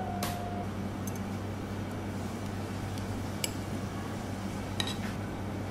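A few sharp, brief clinks of a steel knife and fork against a ceramic plate as steak is cut, about four in all, over a steady low hum.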